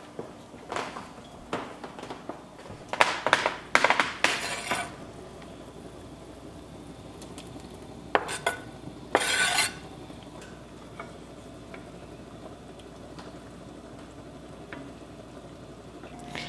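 Knife and plastic cutting board clinking and knocking against a red enamelled cast-iron pot as chopped chicken is scraped off the board into it, loudest about four seconds in, with another short scrape about nine seconds in; a wooden spoon stirs at the end. The sauce simmers steadily underneath.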